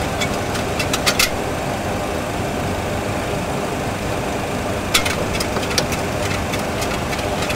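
Steady rushing cockpit noise of a Boeing 737 full flight simulator on approach: the simulated engine and airflow sound. A few sharp clicks about a second in and around five seconds in, as switches on the overhead panel are set.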